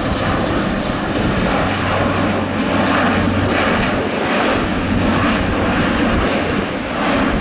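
Airbus A400M's four Europrop TP400-D6 turboprop engines and propellers passing low and slow in a fly-past: a loud, steady engine noise with a low hum underneath.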